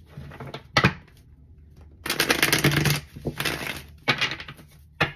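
A tarot deck being shuffled by hand. Sharp snaps of the cards come about a second in and again near the end. Between them, about two seconds in, is a riffling flutter that lasts about a second, followed by two shorter flutters.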